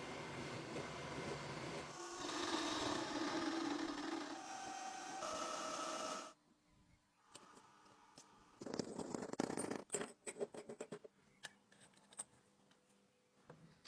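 A metalworking machine runs steadily, then stops abruptly about six seconds in. A run of light clicks and knocks follows, like parts being handled and set down.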